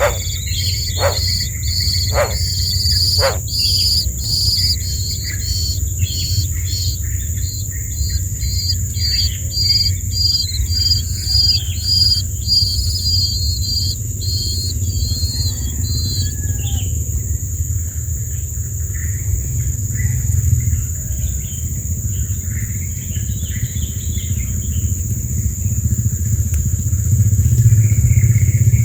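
Nestlings begging with quick series of high chirps, about two a second, over the first half, then only scattered faint calls. A low steady rumble runs underneath throughout.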